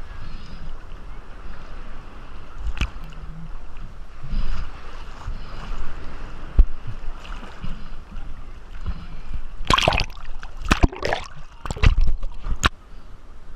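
Choppy seawater sloshing and gurgling around the camera with a low rumble. Near the end comes a quick run of sharp splashes and knocks.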